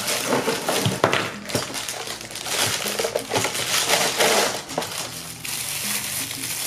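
Clear plastic bag crinkling and rustling as a wrapped mic-stand part is slid out of its cardboard box and unwrapped by hand, with a couple of sharp knocks about a second in.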